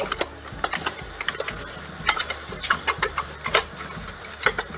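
Irregular crinkling and clicking from a bag of plain flour being handled and tipped over a plastic mixing bowl, over a steady low hum.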